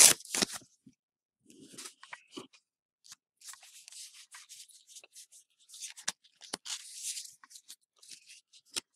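Pokémon trading cards being shuffled and slid against one another in the hands, making dry papery scraping and rustling. There is a loud, sharp rustle right at the start, then shorter intermittent slides.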